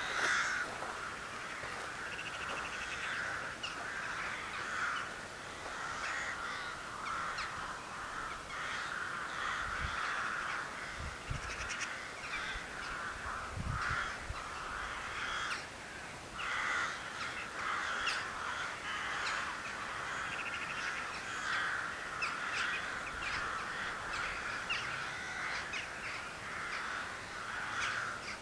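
A flock of birds calling over and over, a dense and continuous chorus of short calls.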